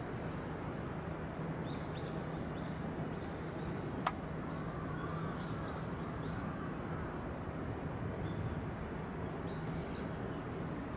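A steady low hum over background noise, with a few faint bird chirps and one sharp click about four seconds in.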